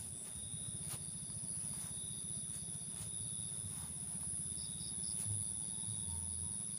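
Night insects chirring: a steady high-pitched cricket trill with a second, lower steady trill beneath it, and a short run of four chirps about five seconds in.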